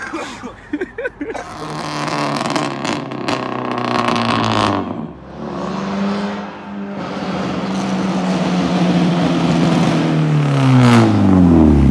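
Car engine accelerating hard toward the listener, its pitch rising with a break about five seconds in where it shifts gear. Near the end it passes close by and the pitch falls sharply.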